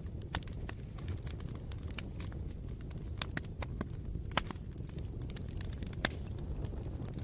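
Campfire burning: a steady low rumble of flames with irregular wood crackles and pops, two sharper pops about four and six seconds in.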